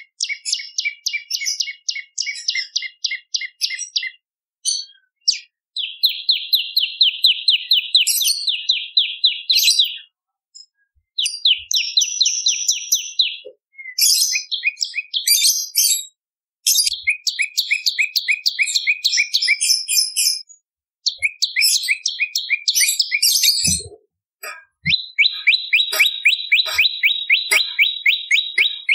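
Prenjak lumut songbird calling in fast rattling trills of sharp, high notes, about ten a second, in repeated bouts of a few seconds with short pauses between.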